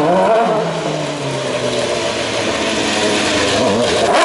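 Honda HSV-010 GT race car's V8 engine revving up and down during a low-speed run. The pitch dips about half a second in, climbs steadily to a peak near the end, then drops sharply.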